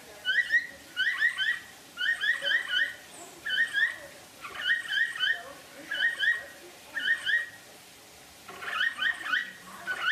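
Capybara giving short rising chirps in quick runs of two to four, a run about every second, with a slightly longer pause about three-quarters of the way through.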